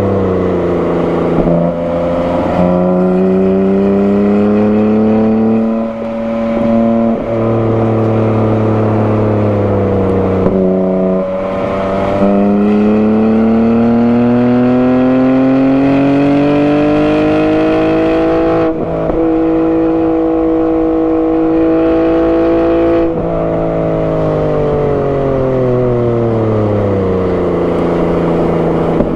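2021 BMW G80 M3's twin-turbo 3.0-litre inline-six, with a non-resonated single midpipe, being driven hard on track: the engine note climbs and drops sharply at gear changes several times, makes a long climb past the middle, holds, then falls away near the end as the car slows.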